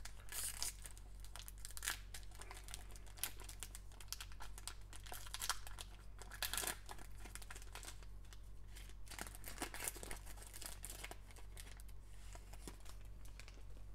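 Foil wrapper of a Panini Select basketball card pack crinkling and tearing as it is opened by hand: an uneven, continuous run of sharp crackles.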